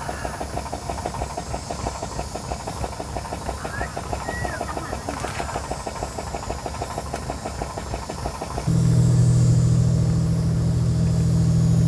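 A small engine runs with a fast, even beat, driving a hose pump that transfers water between boats. About nine seconds in it gives way abruptly to a louder, steady low boat-engine drone.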